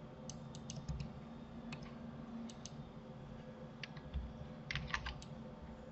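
Computer keyboard and mouse clicks, scattered and light: a quick run of clicks near the start, single clicks through the middle, and another short cluster near the end, over a faint steady hum.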